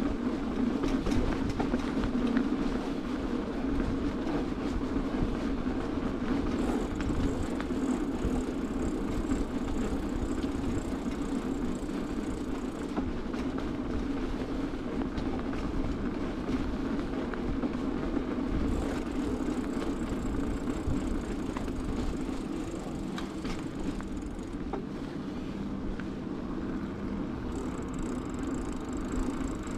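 Bicycle tyres rolling over pavement with the bike rattling over the bumps, heard close up from the handlebars as a steady rumble full of small clicks. A faint high thin whine comes and goes a few times.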